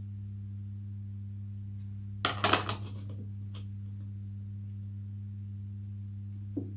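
Steady low hum at two pitches under the whole stretch. A short clatter of small hard objects being handled comes about two seconds in, and a light tap near the end.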